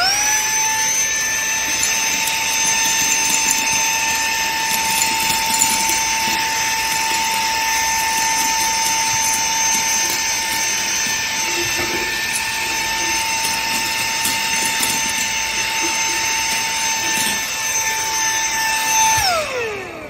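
iMMDOKIN Vacuum Pro 1 cordless handheld vacuum running in regular mode, sucking up dry oatmeal. Its motor spins up to a steady high whine over a rush of air, holds it, then winds down with a falling whine about a second before the end as it is switched off.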